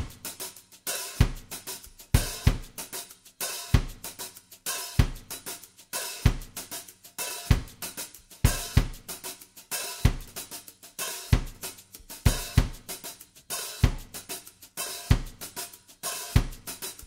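Background music in a drums-only passage: a drum kit playing a steady beat of bass drum thumps with snare, cymbal and hi-hat hits.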